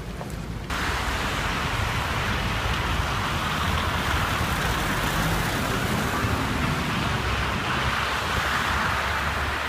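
Steady hiss of city traffic on wet, slushy streets, starting abruptly under a second in.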